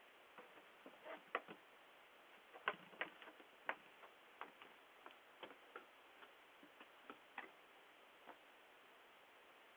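Irregular light clicks and taps, about twenty, from a deer moving at the door, over the steady hiss of a Ring doorbell camera's microphone.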